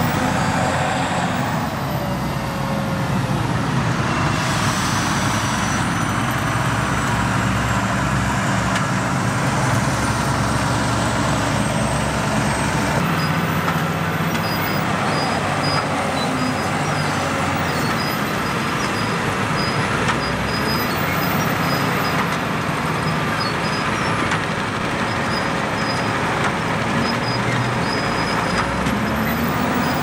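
Heavy diesel machinery running steadily: a Volvo wheel loader and a Claas tractor working at chopped-maize loading. Near the end the engine pitch rises as the loader revs to lift and tip its bucket.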